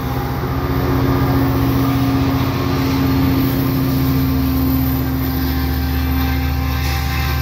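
GMD F59PHi diesel locomotive pushing a commuter train past at close range: its 12-cylinder two-stroke EMD engine drones steadily with a constant hum, over the rumble of the wheels rolling on the rails.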